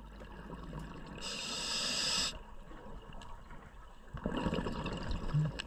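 Scuba regulator breathing underwater. About a second in comes one sharp, high hiss of an inhale lasting about a second, and near the end a lower burbling exhale of bubbles.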